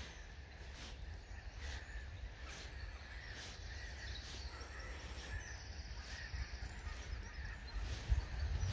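Wind rumbling on the microphone with birds calling faintly, and soft ticks recurring about once every half second to second.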